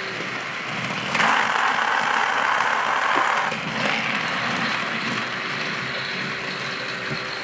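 Battery-powered Thomas Trackmaster toy train's small motor running along plastic track, a steady whirring hum that grows louder for a couple of seconds about a second in.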